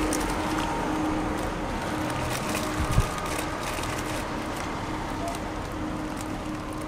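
Street background noise: a steady traffic hum, with a single low thump about three seconds in.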